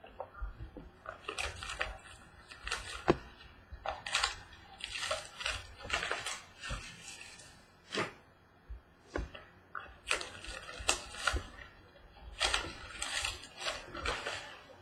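Trading card packaging being handled and opened: irregular rustling and crinkling of wrappers and cardboard, with a few sharper clicks and taps.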